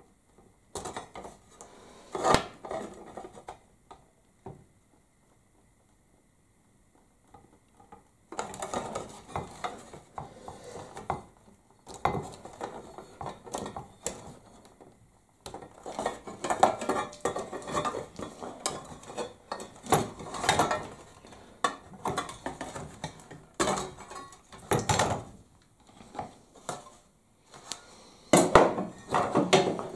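Metal bench grinder parts being handled during disassembly: the housing, casting, tools and small parts knocking and clinking against each other and the bench. There is a quiet stretch a few seconds in, then near-constant clatter with several sharper knocks.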